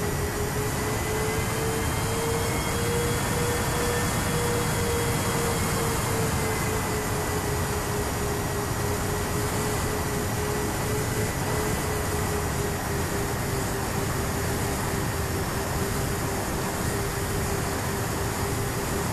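Twin SunnySky 2212 brushless motors and propellers of a Sonicmodell Binary fixed-wing RC plane whining steadily in cruise, heard from the plane's onboard camera with a steady rush of wind. The pitch rises a little a few seconds in, then settles back.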